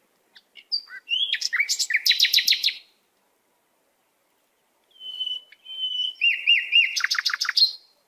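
A small songbird singing two phrases a couple of seconds apart, each made of high, quickly changing notes and ending in a fast run of sharp, chipping notes.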